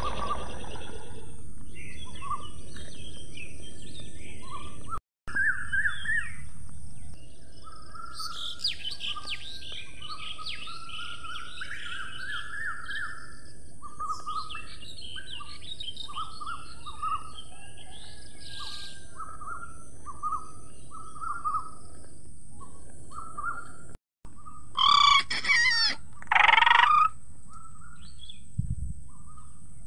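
Nature ambience of many small birds chirping over a steady hiss. Two loud, brief cries come about 25 seconds in.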